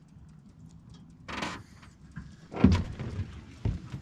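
Fishing reel and rod handled while fighting a hooked catfish: a short whirring burst about a second and a half in, then a heavy thump with rattling around the middle and a sharp knock near the end.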